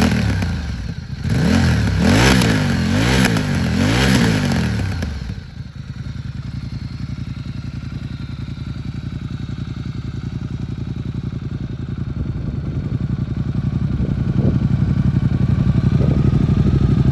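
Ducati Diavel 1260 S's Testastretta V-twin blipped about four times in quick succession, each rev rising and falling, then dropping to a steady, pulsing idle that grows slowly louder near the end.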